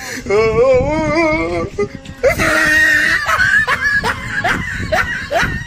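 Music: a wavering melodic line, then a quick series of short rising notes.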